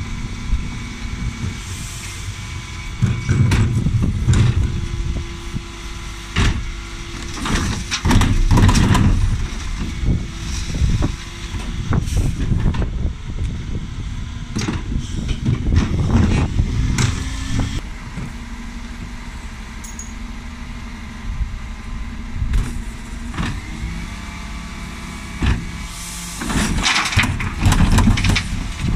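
Dennis Eagle Elite 6 refuse truck's diesel engine running, with the Terberg TA-DE rear bin lift working as it raises and tips wheelie bins, the bins knocking and clattering against the lift and hopper again and again.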